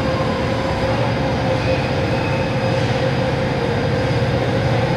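35-ton overhead crane's drive running with a steady hum and a thin, even whine while it carries a suspended railcar body.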